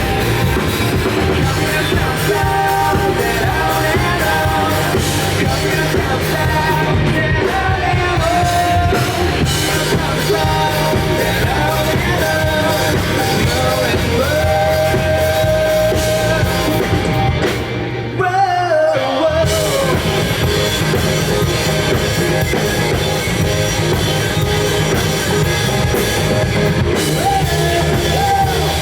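Live rock band playing a song with lead vocals over guitars and drums; the band briefly thins out about two-thirds of the way through, then comes back in at full volume.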